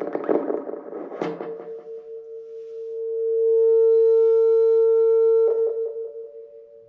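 A rushing noise with a knock about a second in gives way to a steady ringing tone with overtones from a trumpet fitted with a karaoke microphone. The tone swells to its loudest in the middle, is broken by a knock, and then fades.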